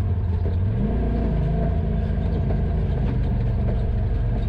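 Side-by-side UTV engine running. About a second in it revs up, the pitch rising, then settles at a steadier, higher speed.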